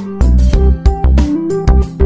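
Music with a steady beat: heavy bass, regular drum hits and a melody of short pitched notes over them.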